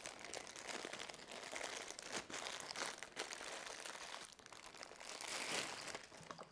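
Thin clear plastic bags crinkling and rustling in an irregular run of crackles as hands unwrap power cables, loudest near the end.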